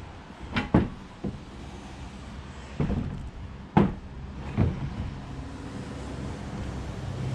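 Irregular metallic knocks and clunks, about six in the first five seconds, as a bicycle headset is worked apart by hand and the front fork is freed from the frame. A low steady hum runs underneath.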